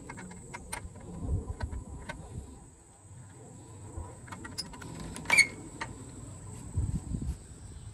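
Scattered light clicks and rubbing from hands working a solar panel's aluminium frame, mounting clamp and cable connector while disconnecting the panel, with one sharp click, the loudest, about five seconds in.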